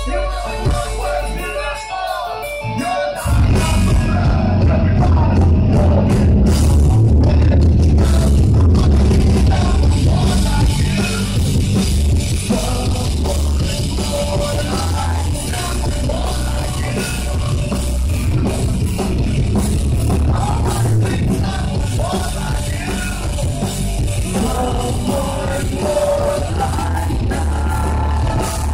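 Live rock band playing loud in a club, with a vocalist singing and yelling over bass guitar and drums. A quieter passage gives way to the full band crashing in about three seconds in.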